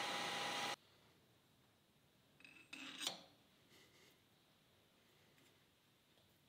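A steady machine hum with one clear tone stops abruptly under a second in. About three seconds in there is a single brief metal-on-metal scrape and clink, typical of a Morse taper shank being slid into a lathe tailstock quill to check its fit.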